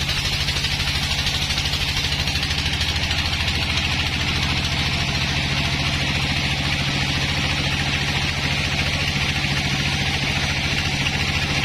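Sawmill engine running steadily at an even speed, with a steady hiss above its note.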